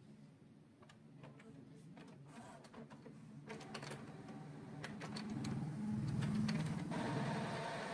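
Epson L8050 ink-tank printer starting its initial ink charge: the mechanism whirs and clicks, growing steadily louder, and a steady hiss joins near the end.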